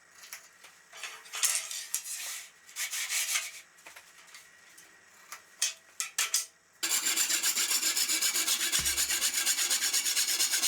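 Short, separate strokes of wood rubbing and sliding in the table saw's groove. From about seven seconds in, a rapid, even scrubbing of roughly six strokes a second follows, which is rust being cleaned out of the old saw's miter-slot grooves.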